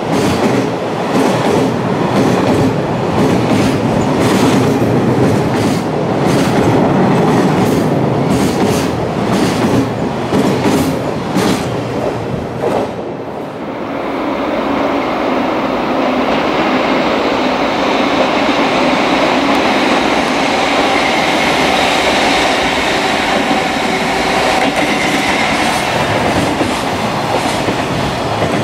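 Container freight train passing close by at speed, its wheels clicking over rail joints in a quick repeating rhythm. About halfway through this gives way to the steadier rumble of another freight train approaching and running past on a farther track, with a faint high whine over it.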